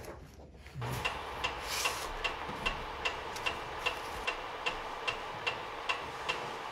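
Mechanical pyramid metronome ticking at a steady, fast tempo, about two and a half ticks a second, starting about a second in.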